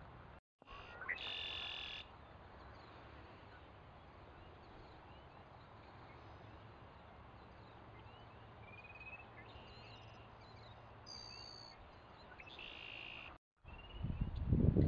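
Savannah sparrow singing its buzzy song, heard strongly about a second in and again near the end, with faint short high notes between songs over a steady low background hiss. A loud low rumble sets in just before the end.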